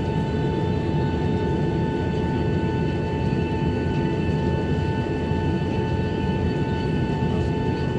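Steady cabin noise inside a Boeing 737-800 on the ground after landing: a constant low rumble with several unchanging whine tones above it.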